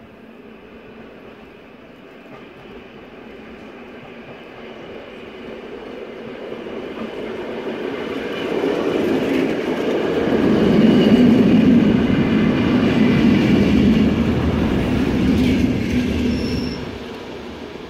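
Plan U diesel-electric multiple unit approaching and running past at close range, its engine and wheels growing steadily louder, with wheel squeal and rail clatter. The sound drops away sharply near the end, just after a brief high squeal.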